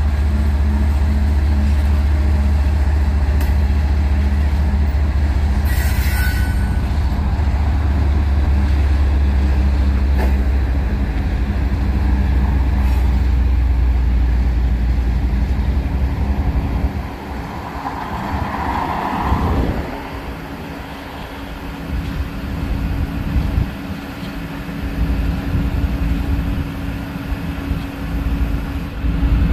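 A CSX diesel locomotive, the hopper train's rear distributed-power unit, passing under power: a deep, steady engine rumble that drops away about 17 seconds in as it pulls off. There is a brief high hiss about 6 seconds in, and a short sound falling in pitch near 19 seconds.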